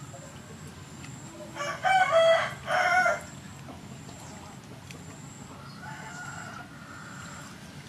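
A rooster crowing once, loud, about two seconds in, its call broken into two parts and lasting just over a second. A fainter drawn-out call follows around six seconds in.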